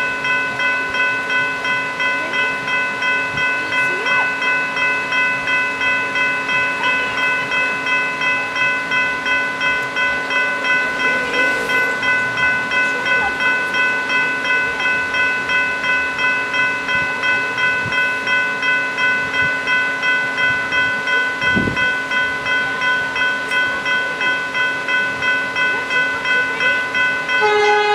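General Signals Type 3 electronic level-crossing bells ringing, a fast, even ding repeated about two and a half times a second. Near the end a louder sound with a wavering pitch joins in.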